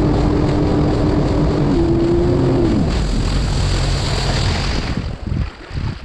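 2020 Sea-Doo FishPro jet ski engine running at speed, its note rising briefly about two seconds in, then falling about three seconds in as the throttle comes off and the craft slows. A rush of noise over the engine dies away near the end.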